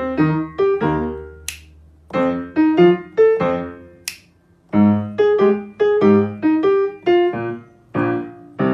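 Background piano music: short, separate struck notes in quick phrases with brief pauses between them. Two sharp, snap-like clicks come in the first half.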